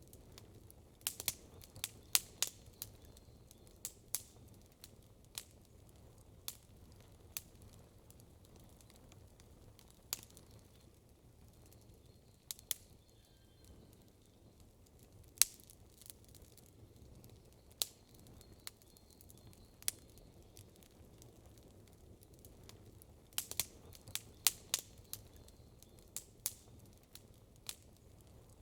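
Campfire crackling: sharp, irregular pops and snaps, in quick clusters about a second in and again near the end, with one loud single pop midway, over a low steady hiss.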